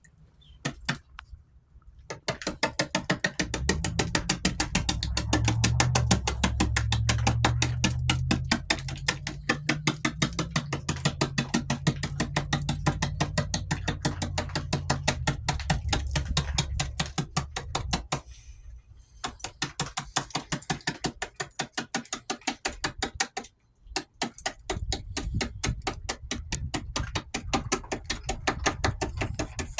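Music with a fast, steady ticking beat, about four to five strokes a second, over a stepping bass line that drops out about two-thirds of the way through.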